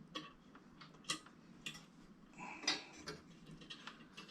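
Faint, scattered metallic clicks and taps as the Coleman 220F lantern's generator and cleaning-lever parts are handled and worked loose.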